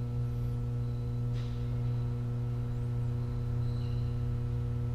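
Steady low electrical hum, a mains hum with a row of evenly spaced overtones, holding unchanged throughout.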